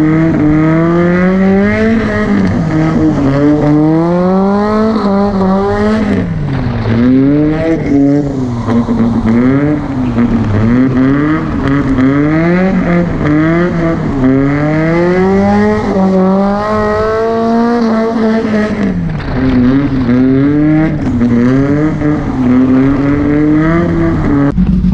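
Volvo drift car's engine revving hard and falling back again and again while drifting, the pitch climbing and dropping every second or two.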